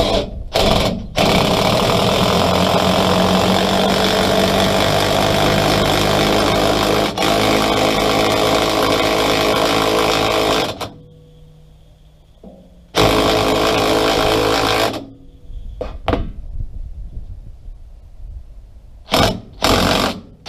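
DeWalt cordless impact driver hammering, turning a bead breaker's screw through a long extension to force the tire bead off the rim. It runs in two short bursts, then about nine seconds without stopping, pauses, runs about two seconds more, and ends in a few short bursts.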